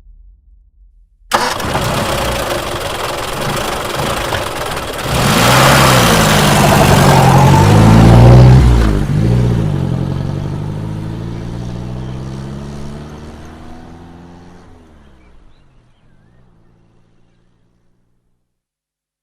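A bus engine starts abruptly about a second in and runs. It then revs up and pulls away, its pitch rising and falling with the gear changes, and fades out over the last several seconds.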